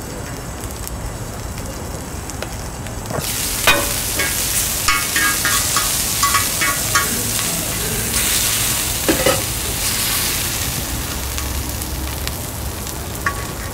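Chuck flap tail steak sizzling on a cast-iron pot-lid griddle. The sizzle jumps up suddenly about three seconds in, as the steel dome cover comes off. Metal tongs clack against the meat and griddle several times as the steak is turned.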